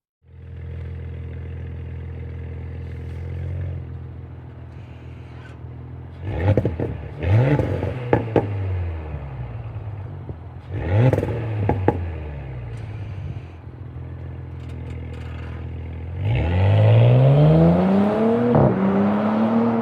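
Audi S5 V6 engine with its front exhaust resonator deleted, heard from outside the car: idling steadily, then revved in two pairs of quick throttle blips, then revved longer and held high near the end.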